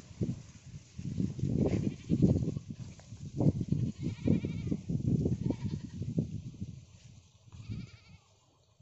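Irregular low thumps and rumbles of a handheld phone microphone carried along a dirt path, from footsteps and handling, dying away near the end. A faint wavering high call comes about four seconds in and again near the end.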